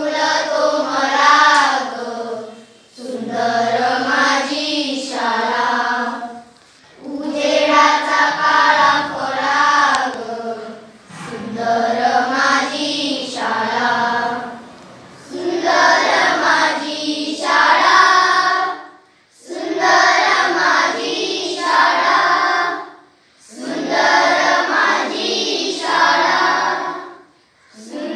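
Group of schoolchildren singing a Marathi school prayer together, in phrases of three to four seconds with short breaks for breath between them.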